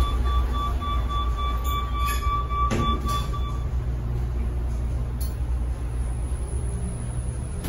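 A lift's door-closing warning beeps rapidly, then stops about three and a half seconds in, with a knock about three seconds in as the doors shut. Under it runs a steady low rumble of traffic and wind.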